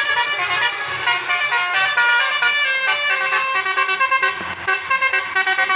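A bus's Basuri multi-tone 'telolet' musical horn playing a tune, a run of short horn notes stepping up and down in pitch, with quicker repeated notes near the end.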